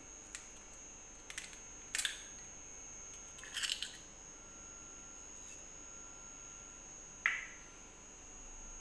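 A few light taps and clicks as a hen's egg is cracked against a stainless steel bowl and dropped in, the busiest cluster about three and a half seconds in and one more sharp click near the end. A faint, steady high-pitched whine runs underneath.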